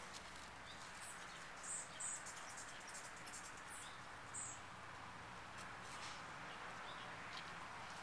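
Faint outdoor ambience: a steady low hiss with about five short, very high bird chirps in the first half.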